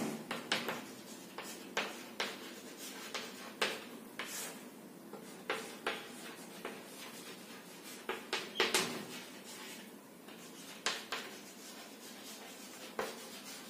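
Chalk tapping and scraping on a blackboard as words are written: an irregular run of short, sharp taps with brief scratchy strokes between them.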